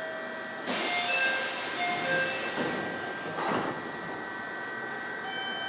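Commuter train's doors closing: a hiss of air and a door chime of short tones, then the doors shut with a thud about three and a half seconds in, over a steady high electrical whine.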